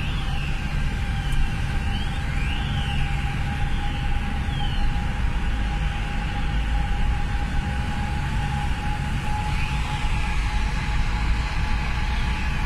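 A car driving through a road tunnel, heard from inside the cabin: a steady rumble of tyres and engine with a constant hum. A faint whistle rises and falls in pitch a few times.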